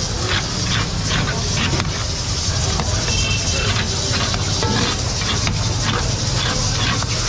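Mutton karahi sizzling and frying in a steel wok, with a metal ladle scraping against the wok about two to three times a second as it is stirred, over a steady low rumble.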